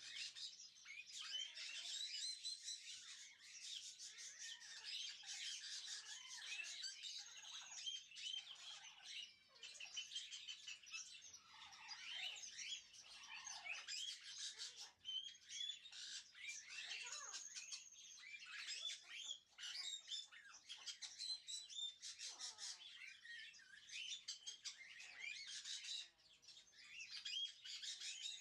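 Many small birds chirping and twittering together, a dense chorus of quick high calls overlapping without a break.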